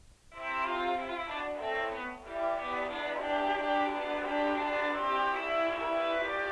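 Title theme music on bowed strings starts about a third of a second in: a melody of short changing notes, a brief break about two seconds in, then longer held notes.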